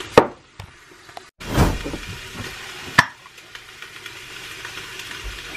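Food sizzling faintly in a stainless steel stockpot. Two sharp clinks against the pot stand out, about three seconds apart, with a short louder rush between them.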